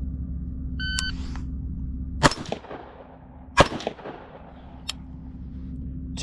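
A shot timer beeps once, then an AR-15 in 7.62x39 fitted with an SJC compensator fires two shots about a second and a half apart, each ringing out after the crack. A faint click follows near the end.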